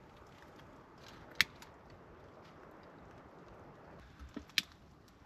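Quiet background with two short, sharp clicks or snaps, about a second and a half in and near the end, the second one preceded by a couple of soft knocks.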